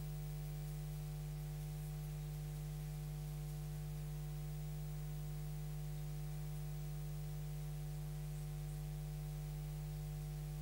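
Steady low electrical hum with a fixed pitch, like mains hum on the broadcast sound feed, with nothing else heard over it.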